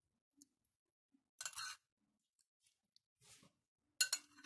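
Mostly quiet, with a few brief soft scrapes of a metal spoon against a small glass bowl and a short clink near the end, as dressing is spooned and poured over a salad.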